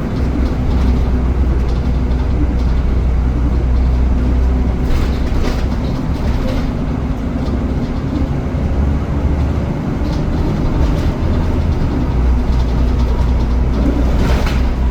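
Steady low rumble of a moving metrobus, with scattered light rattles and clicks.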